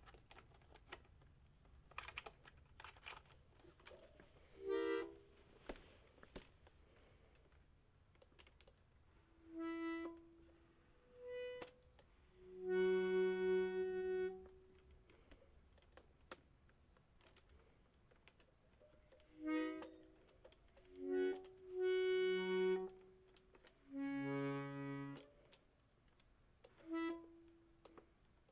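Bellordion piano accordion playing short, separate notes and chords in a halting way, with long pauses between them; a few of the chords carry low bass notes, the longest held for about two seconds near the middle. A few sharp clicks come in the first few seconds.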